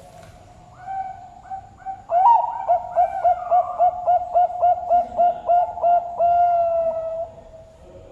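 Zebra dove (perkutut bangkok) singing: an opening coo, then a rapid stuttering string of short coos at about four a second, ending in one long drawn-out coo.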